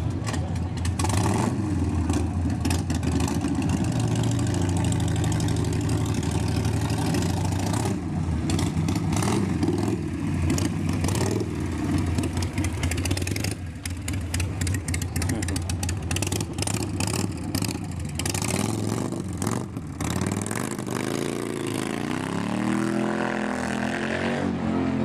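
Motorcycle engines running close by with a deep, uneven rumble and sharp exhaust pops. Near the end the revs rise and fall as a bike is revved or pulls away.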